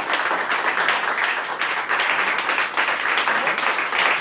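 Applause from a crowd of guests: many hands clapping at once, steady throughout.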